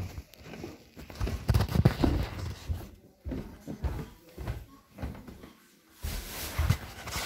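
Handling noise from a phone being moved about in the hand: irregular bumps and rustles, with a couple of short lulls.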